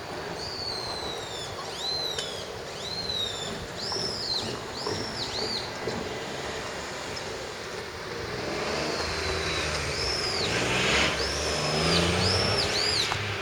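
A bird calling in runs of repeated high, arched notes, once in the first half and again near the end, over traffic noise from a passing vehicle that grows louder from about the middle and peaks near the end.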